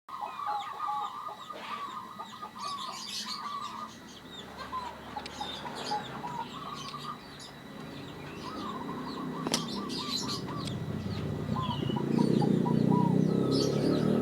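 Zebra dove (perkutut) cooing: several phrases, each a quick run of notes, with smaller birds chirping in the background. A louder low rumble builds up near the end.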